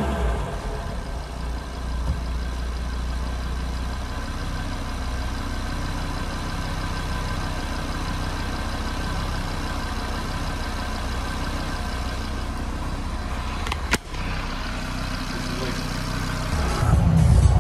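Audi RS3's turbocharged 2.5-litre five-cylinder engine idling steadily with the hood open, breathing through a freshly fitted carbon Eventuri intake. There is a brief break about fourteen seconds in.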